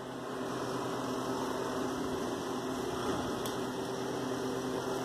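Steady electrical hum with a low, even pitch, like a small mains appliance or fan running, with one faint click about three and a half seconds in.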